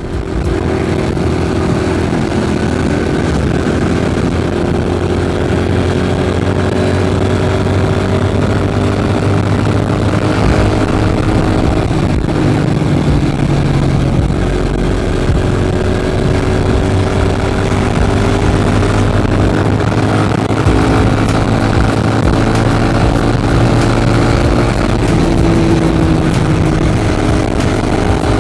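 Small single-cylinder four-stroke engine of a Chinese-made Honda Monkey replica motorcycle, running steadily while being ridden. Its pitch drifts slowly up and down as the speed changes.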